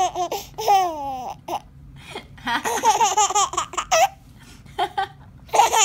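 Baby laughing hard in repeated fits. There is a short pause in the middle, then a long run of quick breathy laughs, then more laughing near the end.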